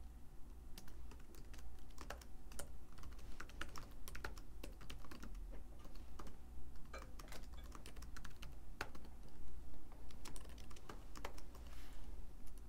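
Typing on a computer keyboard: short, irregular runs of keystrokes, several a second with brief pauses, over a faint steady low hum.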